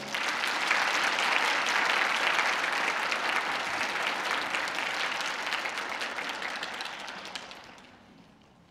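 Audience applauding, breaking out at once and dying away near the end.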